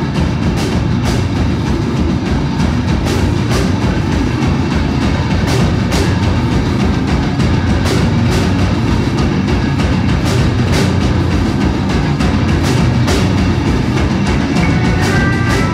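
Rock band playing live: electric guitars and bass over a drum kit, with cymbal hits cutting through at a steady pulse. A few short high guitar notes come in near the end.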